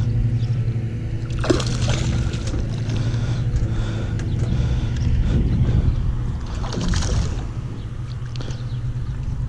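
A motor drones steadily at a low pitch throughout, with a few light water splashes and plops from a topwater popper lure being worked across the surface and, near the end, a hooked small bass splashing at the surface.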